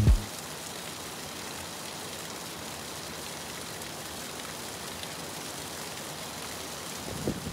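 Steady rushing of a snowmelt waterfall and mountain stream: an even hiss with no rhythm.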